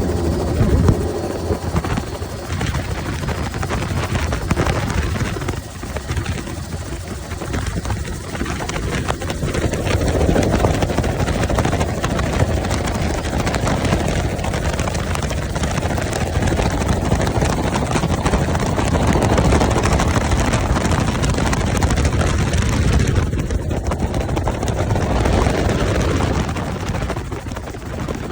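Helicopter running, its engine and rotor making a loud, steady noise.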